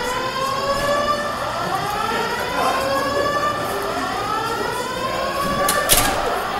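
Electronic alarm siren sounding continuously in repeated rising sweeps that echo and overlap. A single sharp knock about six seconds in.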